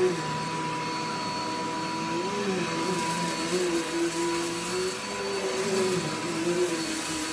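Vacuum cleaner motor running steadily, its hum wavering up and down in pitch every second or two. It does not sound like it's struggling.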